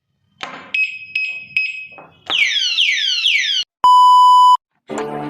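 A sequence of electronic alarm tones: four ringing dings, then four quick falling siren-like sweeps, then one loud steady beep. Music starts near the end.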